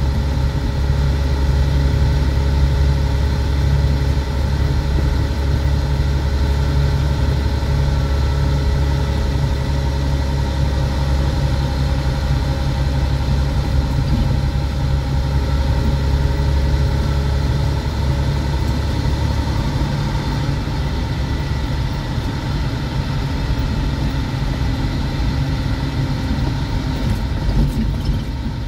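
Semi truck's diesel engine running while the truck drives, heard from inside the cab as a steady low drone with a few steady tones above it. The drone turns rougher and less even about twenty seconds in.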